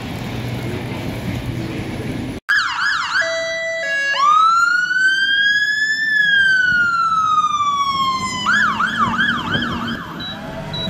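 Street traffic rumble, cut off abruptly about two and a half seconds in. Then a London Fire Brigade fire engine's siren sounds: a quick yelp, one long wail rising and then falling, and fast yelping again near the end.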